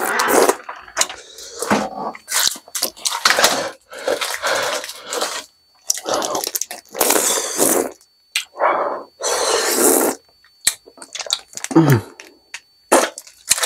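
A man breathing hard through the mouth in short, noisy bursts, with wet mouth sounds as he sucks on an ice pop and a falling groan near the end. His mouth is burning from the extremely hot chili chip he has just eaten.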